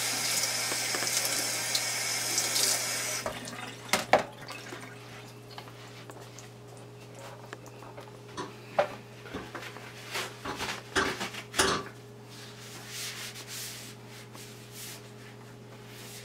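Kitchen tap running as a cutting board is rinsed under it, the water shut off about three seconds in. After that come several short knocks and clunks as the board is handled.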